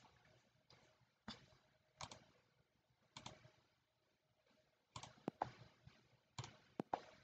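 Faint, scattered clicks of a computer mouse in near silence, about nine in all and more frequent in the second half.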